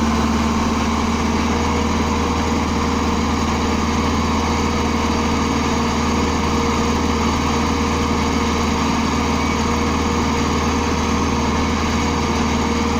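Komatsu PC60 excavator's diesel engine running steadily at an even pitch.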